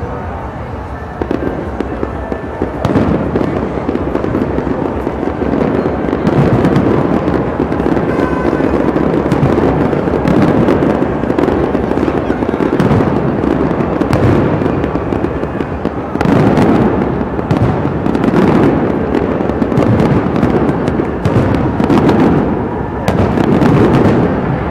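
Aerial fireworks display: shells bursting one after another in a continuous rumble of booms and crackle. The bangs come thicker over the last several seconds.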